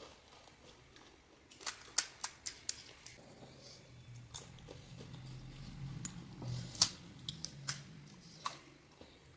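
Close-up crunching and clicking of someone chewing panipuri, the crisp fried puri shells cracking between the teeth in irregular sharp snaps. A low hum joins in the middle.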